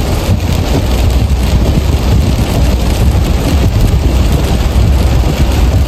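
Steady road and wind noise of a car driving at highway speed: a constant low rumble with a hiss over it.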